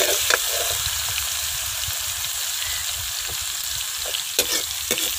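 Onions frying in hot ghee in a metal kadhai, a steady sizzle, with a metal spoon scraping and ticking against the pan a few times as it stirs.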